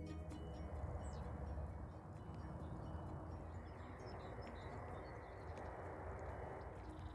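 Outdoor ambience: a steady rushing noise with faint bird chirps over it.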